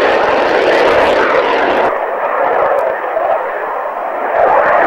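Eurofighter Typhoon's jet engines, loud and steady as the fighter flies its display manoeuvre overhead, easing slightly about two seconds in and swelling again near the end.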